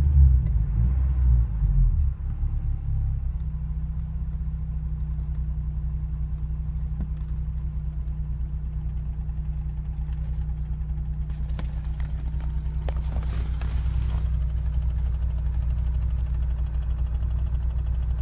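Car engine revved briefly, then settling to a steady idle with a fast, even ticking: the ticking noise the owner is recording.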